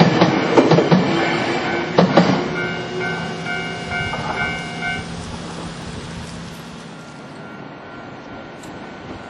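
Electric train passing over a level crossing, its wheels clacking sharply over the rail joints for the first couple of seconds, then fading away. The crossing's warning bell keeps ringing in a steady pulse and stops about five seconds in, once the train has cleared.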